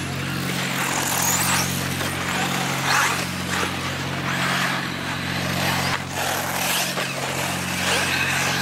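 1/8-scale electric RC buggies racing on a dirt track: the high motor whine and tyre noise rise and fall as cars pass, about once a second, over a steady low hum.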